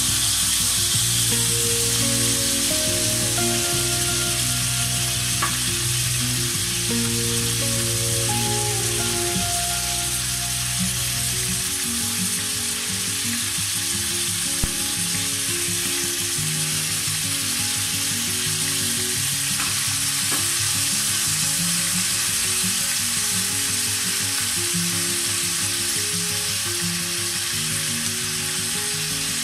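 Chicken pieces and sliced shallots sizzling in oil in a non-stick wok, a steady hiss, with one sharp tap about halfway through. Background music with slow, held notes plays underneath.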